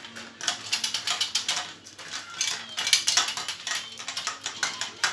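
Marbles rolling and clattering down a plastic marble run, a quick, irregular stream of small clicks and rattles on the plastic track.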